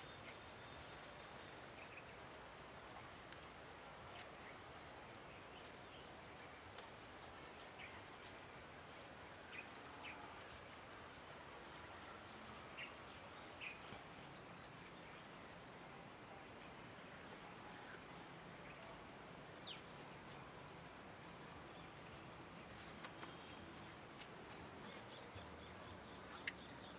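Faint outdoor ambience with an insect chirping in a steady rhythm, a little under two chirps a second, fading out near the end, with a few faint scattered taps.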